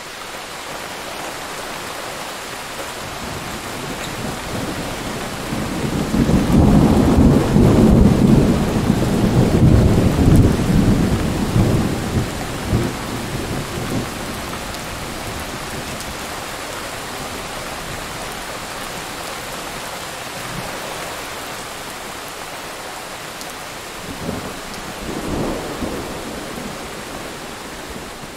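Thunderstorm: steady heavy rain with a long rumble of thunder that builds about six seconds in and fades away over the next eight seconds or so, then a shorter, weaker rumble near the end.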